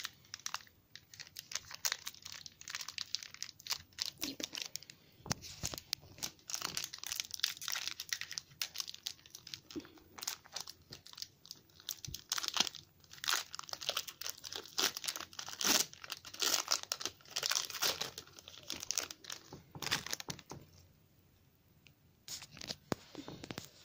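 Foil wrapper of a Pokémon booster pack crinkling and tearing as it is wrestled open by hand, a stubborn pack that won't tear easily. A long run of rapid crackles and rips that dies away near the end, with a few last crackles.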